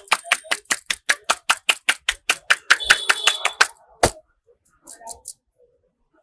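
A barber's hands slapping and tapping rapidly on a head in a percussive massage, about six sharp slaps a second. The rhythm stops a little over halfway through, followed by one heavier thump and a few faint clicks.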